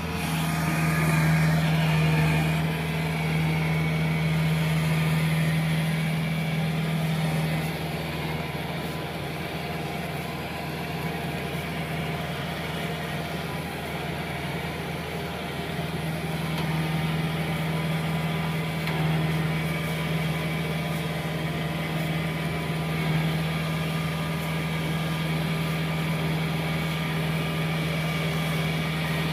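Kubota tracked rice combine harvester's diesel engine running steadily with a constant hum as the machine crawls through mud. It swells a little louder in the first few seconds, eases off, then grows louder again from about halfway through.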